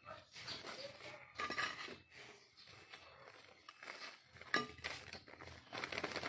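Soil scraped and tipped from a metal hand trowel into a plastic planting bag and pressed down by hand: irregular scraping and rustling with small clinks, and a sharp click about four and a half seconds in.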